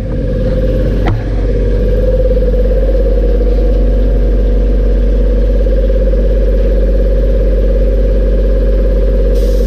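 A motor-driven machine running with a loud, steady hum, with a light knock about a second in.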